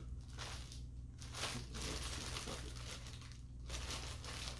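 Clear plastic packaging bag crinkling irregularly as it is handled and turned over in the hands.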